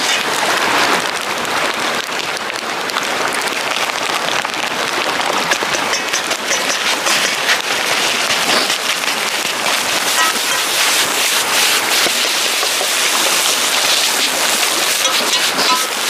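Egg and rice sizzling in a wok over a wood fire, with a steel ladle scraping and tapping against the pan in many short clicks.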